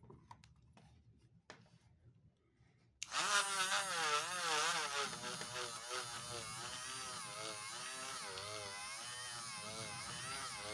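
A few faint handling clicks, then about three seconds in a small handheld rotary tool switches on and runs with a felt polishing wheel pressed inside a stethoscope's metal chestpiece bell. Its whine wobbles up and down in pitch as the wheel bears on the metal, loudest at first, then settles to a steadier run.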